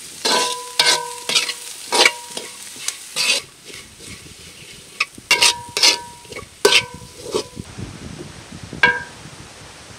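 Metal spatula scraping and knocking against a large metal wok while shredded vegetables are stir-fried over a light sizzle; many strokes leave a short metallic ring from the pan. The strokes come roughly every half second, thinning out and stopping a second before the end.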